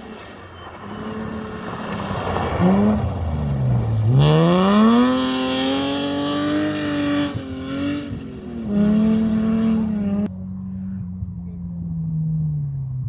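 BMW 3 Series (E36) rally car's engine revving hard through the gears on a gravel stage, its pitch dropping at each gear change and climbing steeply again as it accelerates past. About ten seconds in it gives way to a second rally car's engine, quieter, its note slowly falling.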